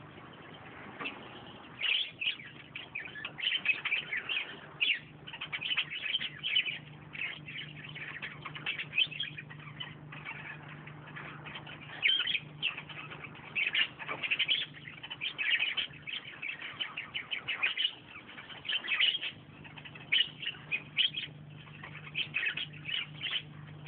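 Birds chirping and twittering in many quick, short calls, some overlapping, over a faint steady low hum.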